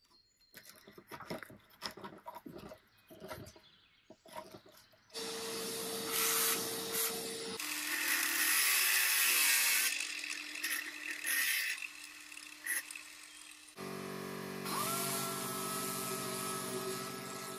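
A wood chisel picking and scraping a broken spindle stub out of a hole in a wooden chair seat: a run of small clicks and scrapes. About five seconds in, an electric angle grinder starts up and grinds the wood, its note dropping a couple of seconds later. Near the end, a compressed-air random orbital sander starts with a whine that climbs and then holds steady.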